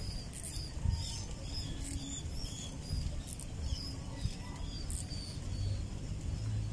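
Small birds chirping, with many short high calls scattered through, over a steady low wind rumble on the microphone. A few faint sharp clicks stand out.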